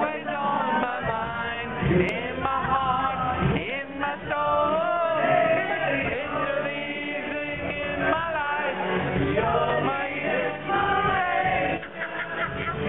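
A man singing a melody over music.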